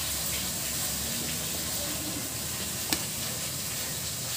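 Steady hissing background noise, with a single sharp click about three seconds in.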